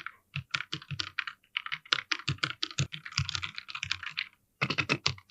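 Typing on an Ant Esports MK3200 V2 mechanical keyboard with Otemu red linear switches: a quick, irregular run of key clacks with a brief pause about four seconds in.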